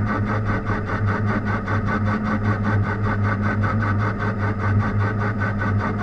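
Machine tool running steadily during machining: a motor hum with an even, fast pulsing of about five beats a second.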